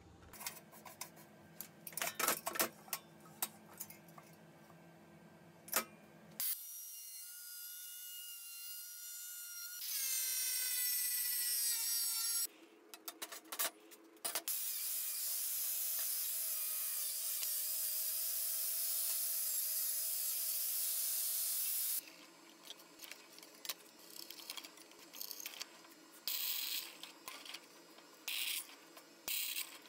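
Metalworking tools at work: scattered clicks and knocks of metal being handled, then a power tool's motor whining and rising in pitch. After that a machine runs steadily with a hiss for about seven seconds before stopping suddenly, and more clicks follow.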